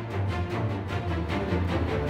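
Background music: held notes over a strong bass, with a regular pulse.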